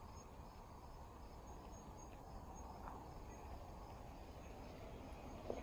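Faint insects chirping in short, high repeated pulses over a low, steady background rumble, with one small click near the end.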